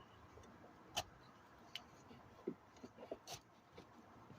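A few sharp plastic clicks and small knocks of electrical harness connectors being handled and pushed together, the loudest click about a second in, as the plugs snap home.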